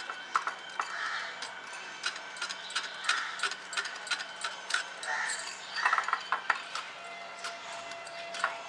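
Wire whisk stirring a powdery flour-and-cocoa cake mix in a glass bowl: irregular clinks of the wires against the glass, with soft swishing through the powder between them.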